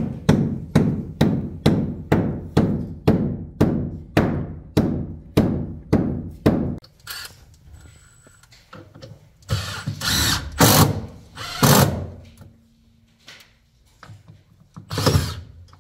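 Hammer blows at a steady pace of nearly three a second, each with a short ring, stopping about seven seconds in. Then come a few short, harsher noisy bursts.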